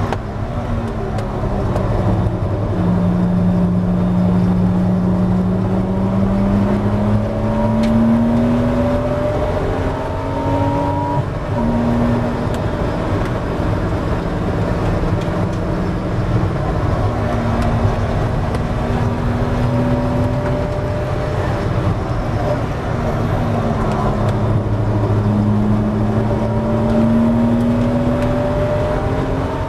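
Porsche 986 Boxster S flat-six engine heard from inside the cabin at racing speed. The revs climb under throttle, drop at an upshift about 11 seconds in, climb again, fall away around 20 seconds, then rise once more near the end, over steady road and tyre noise.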